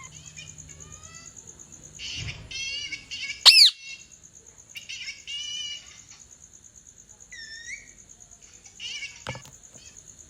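A pet parrot chirping and calling in short bouts of gliding notes, with one loud shrill call about three and a half seconds in.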